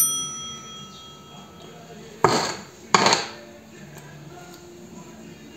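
A bright chime-like ding rings out and fades over about two seconds: the like-button sound effect. Then come two loud metallic clanks about a second apart against the metal grease pail, as grease is worked into the syringe.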